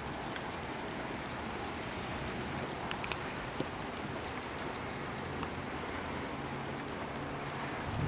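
Steady rain falling, an even hiss with scattered drop ticks and a faint steady low hum underneath.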